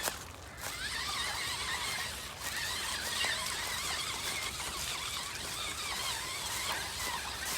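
Small electric RC crawler's motor and drivetrain whining as it drives, the pitch wavering up and down with the throttle, over a noisy background; it picks up about a second in.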